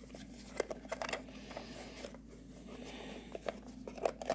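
Faint, scattered clicks and scrapes of an Imaginext mummy maker's hard plastic case being handled and pried open.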